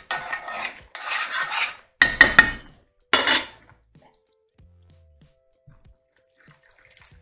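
A metal spoon stirring thick tomato sauce in a skillet, scraping against the pan. A few sharp taps follow, then one clatter as the spoon is put down on a plate.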